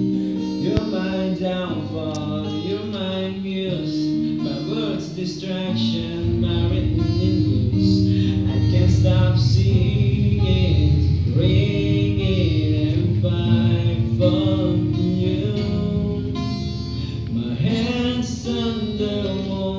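Background music: a song with a singing voice over plucked guitar, growing fuller and a little louder about six seconds in.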